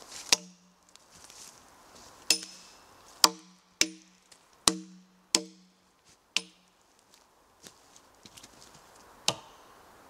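Hatchet striking felled logs: about eight sharp, unevenly spaced chops, each followed by a brief ringing tone from the struck wood, with a longer gap before the last one near the end.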